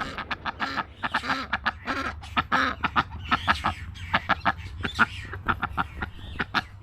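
Birds calling: a rapid, dense run of short repeated calls.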